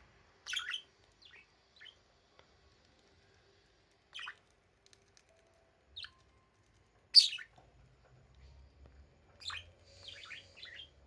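Budgerigars chirping in short, separate calls, the loudest about seven seconds in, then a quick run of short notes near the end.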